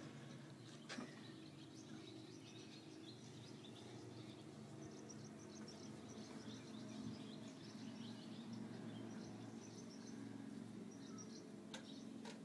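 Quiet ambience: a low steady hum with faint, scattered bird chirps, and a single light click about a second in.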